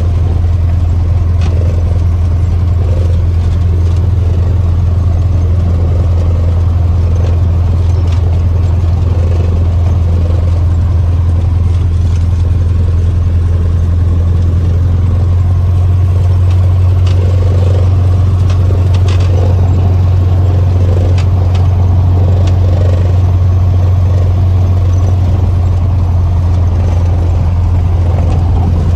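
Cessna 150's four-cylinder Continental O-200 engine and propeller running steadily with a constant low drone, with a few faint clicks.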